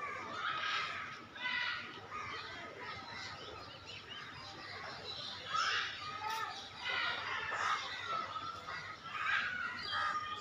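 Birds calling over and over in short, clucking and chirping notes.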